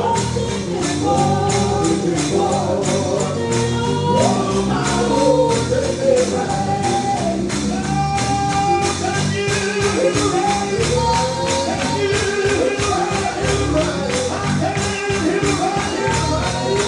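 Gospel music: singing over a fast, steady tambourine beat.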